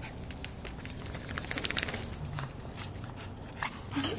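Small dog's claws clicking on a bare concrete floor as it scurries about, with a quick run of clicks about a second and a half in.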